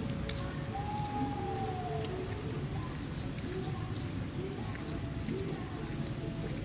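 Several birds calling: many short, high, arched chirps repeating throughout, with a longer, lower whistled call that slides downward about a second in. A steady low rumble lies underneath.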